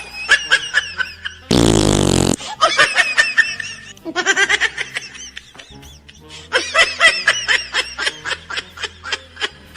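A loud prank fart sound, under a second long, about one and a half seconds in, over background music and laughter.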